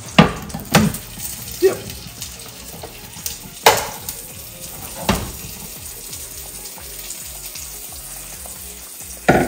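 Hot frying pan sizzling faintly and steadily, broken by several sharp knocks and clinks of a wooden spoon and metal cookware on the stovetop.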